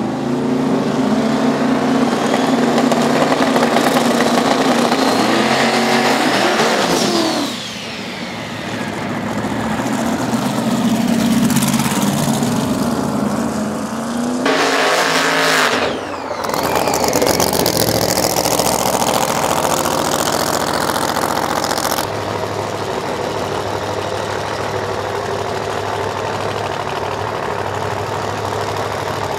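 Drag race car engines at wide-open throttle on qualifying passes, loud, with a rising whine as the cars accelerate. The sound cuts abruptly several times between passes, and in the last part gives way to a steadier, lower engine sound.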